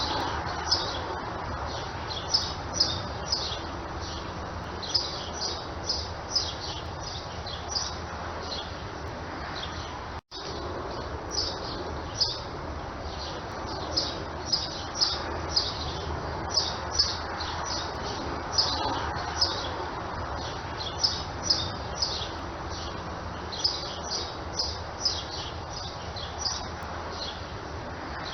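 Small birds chirping: many short, high chirps in quick irregular runs over a steady background hiss. There is a split-second dropout about ten seconds in.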